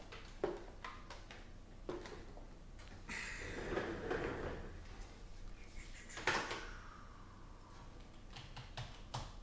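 Scattered light clicks and knocks of objects being handled in a small room, with a rustling stretch a few seconds in and one louder knock about two thirds of the way through.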